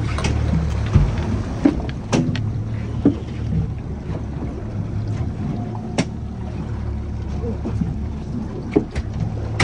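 A boat's outboard motor runs with a steady low rumble at trolling speed, with wind and choppy water along the aluminium hull. A few sharp knocks come at irregular moments, likely the landing net and gear striking the gunwale as a salmon is netted.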